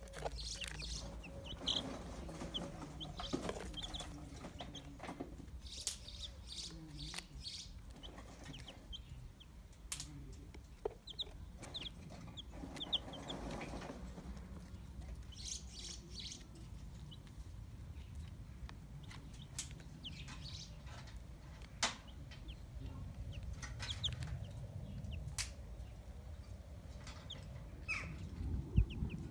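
Ten-day-old chicks peeping in short, high chirps while they feed, with scattered sharp clicks among them.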